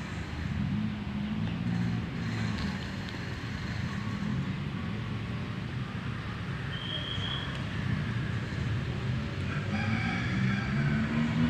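Outdoor ambience: a steady low rumble, with a short high call about seven seconds in and a longer pitched call, like a distant animal calling, from about nine and a half seconds to the end.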